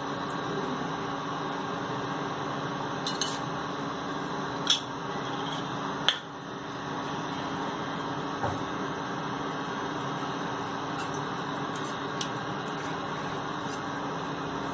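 Steady hiss with a low hum from a pan of ghee heating on an electric hot plate, with three light metallic clicks, like a utensil tapping the pan, a few seconds in.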